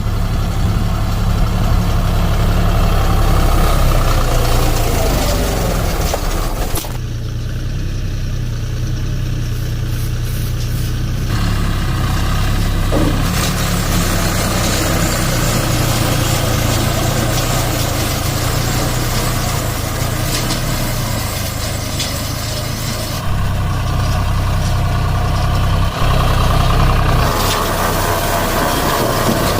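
Deutz-Fahr 4050E tractor's three-cylinder diesel engine running steadily, with the sound changing abruptly a few times, about a quarter of the way in and again near the end.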